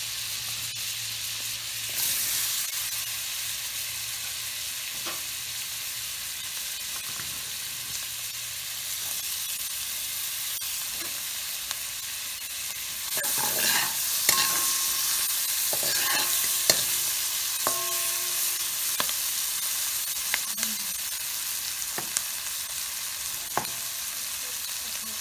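Chopped onions, bell peppers and parsley frying in melted butter in a cast-iron pot, a steady sizzling hiss. From about halfway in, a spatula scrapes and taps against the pot as the vegetables are stirred.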